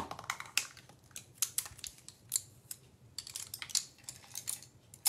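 A handful of paintbrushes clicking and rattling together as they are picked up and sorted: irregular light clicks and taps in short clusters.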